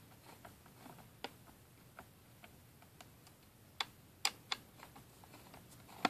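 Faint, scattered plastic clicks and taps, a few of them sharper, as a laptop's hard-drive bay cover is handled and pressed back into place on the underside.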